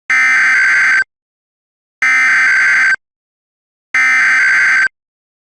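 Emergency Alert System SAME header: three bursts of digital data tones, each about a second long and about a second apart, marking the start of an EAS test alert.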